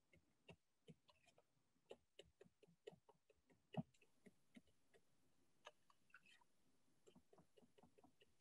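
Near silence, broken by faint scattered clicks and knocks; the most distinct comes a little under four seconds in.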